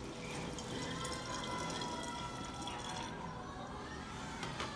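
Sugar water poured through a plastic funnel into a glass gallon jug, a steady splashing fill that stops about three seconds in. A few light knocks near the end.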